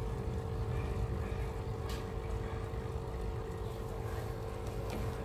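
A steady low mechanical hum and rumble with a constant tone in it. A couple of faint clicks come from the small plastic valve on the drain tubing as it is worked.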